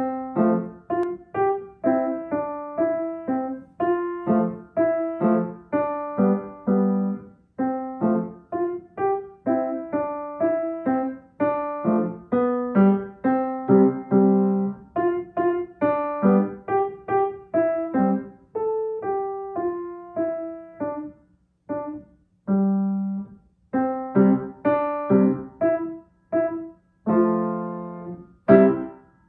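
Acoustic grand piano playing a short solo piece: single notes and chords struck in a steady rhythm, with a few brief pauses between phrases.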